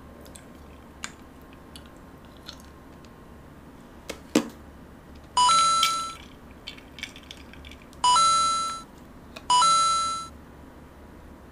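Three electronic alert beeps, each a brief lower note jumping up to a higher one held for under a second and fading, about five, eight and nine and a half seconds in; they mark the decibel meter jumping up. Before them, a few soft eating clicks and two sharper knocks about four seconds in.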